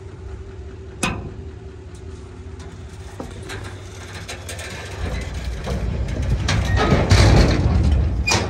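A Honda CRX that does not yet run rolls off a trailer with its engine off: a single knock about a second in, then a rising rumble and crunch of tyres coming down the ramps onto gravel, loudest near the end.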